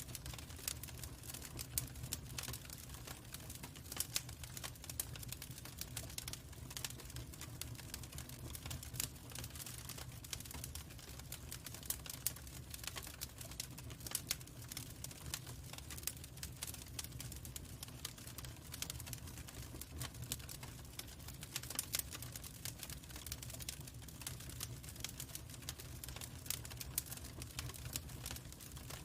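Log fire crackling: a constant scatter of irregular sharp snaps and pops over a low, steady rumble.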